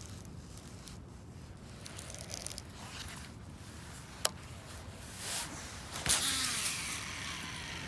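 Baitcasting reel and rod in use: a single sharp click about four seconds in, then near the end a swish followed by a steady high whir of the reel over a low outdoor background.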